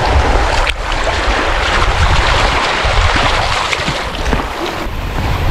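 Wind buffeting the microphone over a steady wash of lake waves on a beach, with a brief click under a second in.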